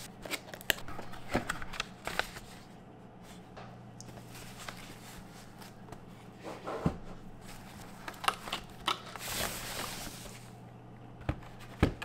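Packaging being handled during an unboxing: a cardboard box and plastic wrapping moved and rustled, with scattered knocks and clicks, over a faint steady hum.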